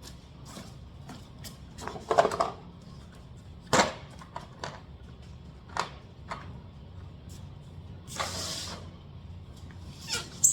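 Hand tools and bits being handled: scattered clicks, knocks and a short rattle as Torx bits and sockets are picked up and fitted, with a brief rustle about eight seconds in.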